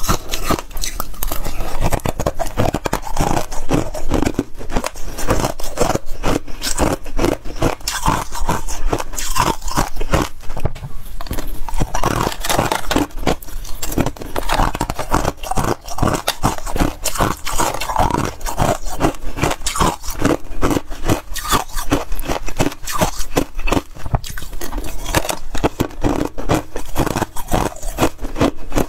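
Freezer frost being eaten: rapid crunching bites and chewing of frozen ice, with scraping sounds mixed in, one crunch after another.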